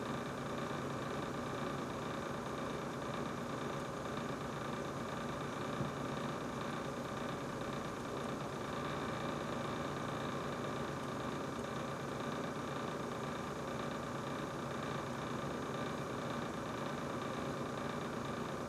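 Brand-new GE refrigerator running with a steady hum and a whine of several held tones, a noise the owner finds unusual for a new fridge.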